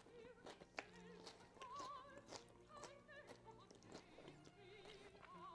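Very faint classical background music, a melody line with vibrato, with a few soft clicks.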